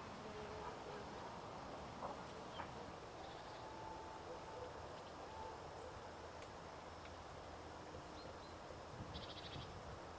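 Faint outdoor background with scattered distant bird calls: short thin whistles and chirps, and a couple of small clicks about two seconds in.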